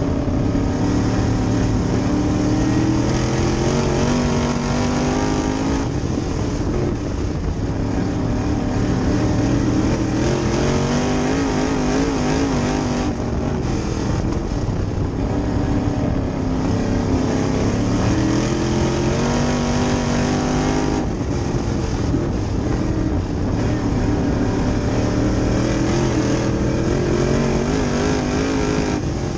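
Dirt-track sportsman late model's V8 engine at racing speed, heard from inside the cockpit. The revs climb for several seconds and then drop as the driver lifts for each turn, about every seven to eight seconds.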